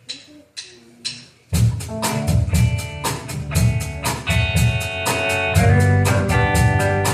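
Live band with drum kit and guitar: three evenly spaced taps count in, then about a second and a half in the full band starts playing an upbeat song with a steady drum beat.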